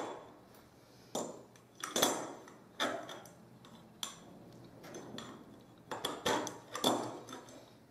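Metal tubes and thin metal rods of a homemade portable barbecue grill clinking and rattling as the rods are slid through the tubes and the frame is fitted together. The sound is a series of separate metallic clinks, several with a brief ring.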